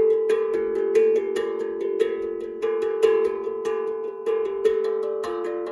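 Steel tongue drum played with the fingertips in an improvised melody: notes struck several times a second, each ringing on under the next.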